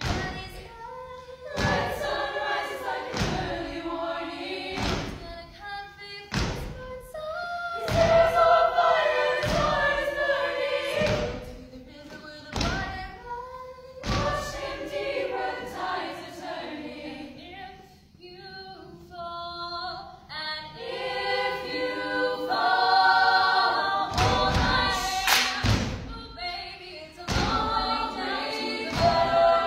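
Women's a cappella group singing in close harmony with a lead voice over the group, keeping time with thumping body percussion, about one beat a second. The beat drops out for a stretch in the middle and comes back near the end.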